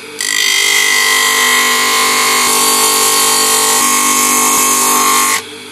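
Electric bench-grinder motor spinning a coarse 24-grit sanding disc, with a wooden sheath half pressed against it: a loud, steady sanding hiss over the motor's hum. The sanding sets in almost at once and stops abruptly near the end as the wood is lifted off, while the motor keeps humming. The coarse grit is cutting out the blade recess in the wood.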